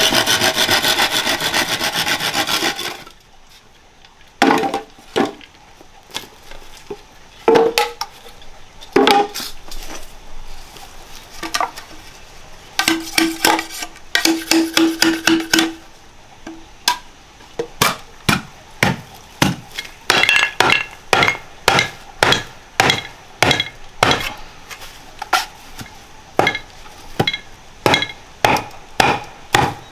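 Hand sawing through wood that stops about three seconds in, then scattered knocks and a run of regular blows on wood, about two a second.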